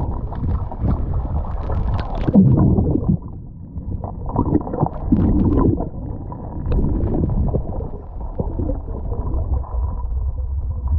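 Muffled underwater sound picked up by a camera in the sea: a steady low rumble with several gurgling bursts of bubbles, each up to about a second long, and scattered sharp knocks.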